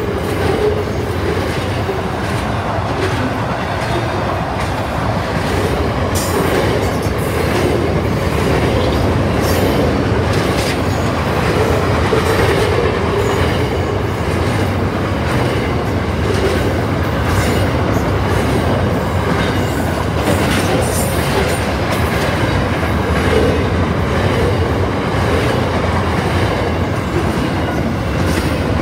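Freight train of double-stacked container wagons passing close by: steady, loud rumble of steel wheels on the rails, with scattered sharp clicks and clatters from the wagons.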